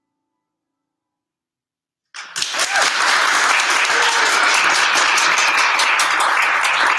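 Audience applause, starting suddenly about two seconds in after a silence and going on steadily.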